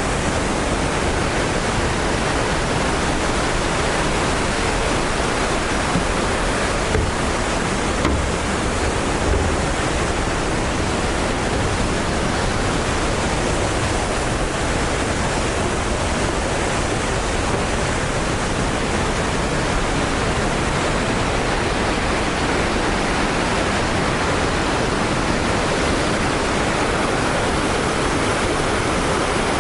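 Kegon Falls, a large waterfall, making a loud, steady rush of falling water, with a few faint low bumps about seven to nine seconds in.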